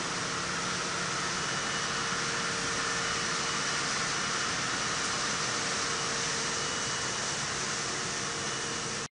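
Steady hiss and hum of copper tube production-line machinery, an even noise with a faint steady tone in it, cutting off suddenly at the end.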